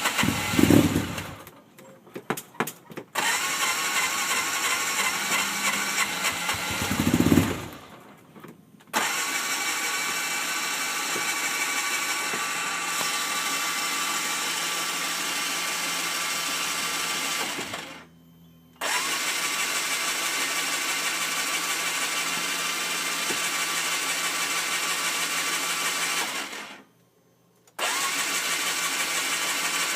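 A Polaris RZR that is hard to start, cranked on its starter in three long stretches with short pauses between them. There are two brief low rumbles near the start.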